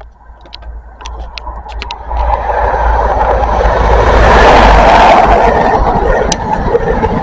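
CrossCountry HST passing through at speed. The rumble and rush of the Class 43 power car's MTU diesel and its wheels on the rails swell from about two seconds in and are loudest as the power car goes by, then the coaches rush past. A few light clicks sound as it approaches.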